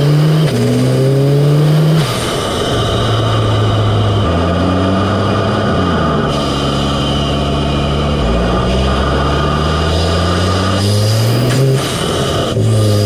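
Audi S3's turbocharged 2.0-litre four-cylinder heard up close through an APR carbon fiber open intake, its induction note climbing and falling with the revs. The pitch drops suddenly about half a second in, again at about two seconds and near the end, with a slower fall in the middle.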